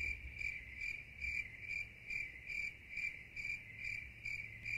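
Crickets chirping in a steady, even rhythm, a little over two chirps a second, with a faint low hum underneath.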